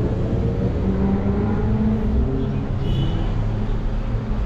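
Road traffic: a car engine running with a steady low rumble. A brief high squeak comes about three seconds in.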